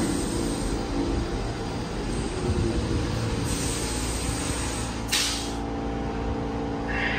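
R46 subway train rolling to a stop at the platform, its low rumble and faint motor whine dying away. Air hisses briefly a few seconds in and again sharply about five seconds in as the brakes set.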